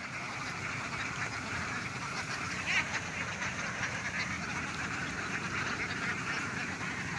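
A flock of several hundred domestic ducks quacking in a dense, continuous chatter as they forage. One louder call stands out about three seconds in.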